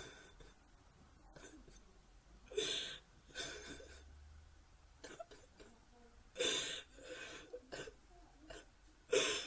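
A teenage girl sobbing: breathy, gasping sobs that come in separate bursts every second or two, the strongest about two and a half, six and a half and nine seconds in.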